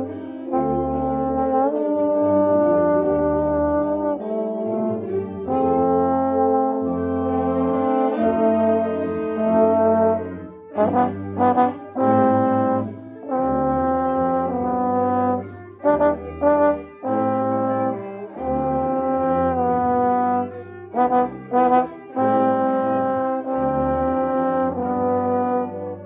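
Wind band playing, with a tenor trombone close by carrying sustained notes and moving lines over deep bass notes, and sleigh bells jingling in rhythm above. Partway through, the band plays a run of short, separated chords, and the playing stops near the end.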